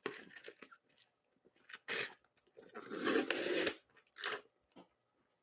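A man eating something crunchy close to the microphone: a string of short crunching bites and chewing, the longest stretch of crunching about three seconds in.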